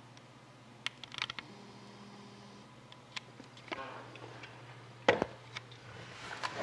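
Scattered clicks, taps and rustling of a cardboard trading-card box and its packs being handled, with a sharper knock about five seconds in.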